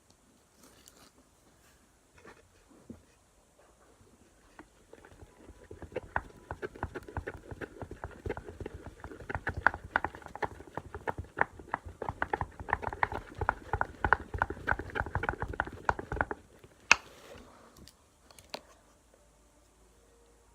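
Glue slime being mixed after Tide laundry detergent is added as the activator: a fast run of wet, sticky clicks and squelches lasting about ten seconds, which stops suddenly and is followed by one louder click.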